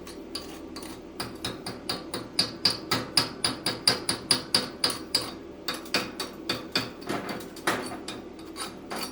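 A hand tool repeatedly scraping and striking a steel weld, knocking slag off a stick-weld bead laid with 7018 rods, in quick even strokes about three a second.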